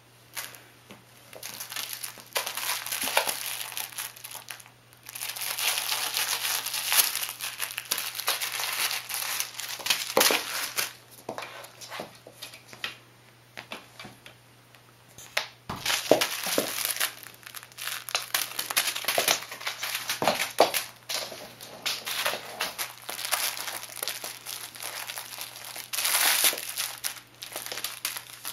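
Kong Kickeroo cat toy's crinkle filling crinkling in irregular bursts as a kitten grabs, bites and kicks it, with short pauses and a few sharp knocks against the floor.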